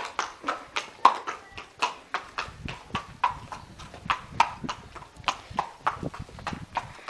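A horse's hooves clip-clopping at a walk on concrete, a steady run of sharp hoof strikes.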